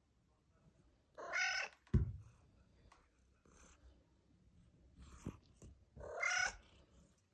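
Domestic cat meowing twice, each meow about half a second long and several seconds apart, with a dull thump just after the first.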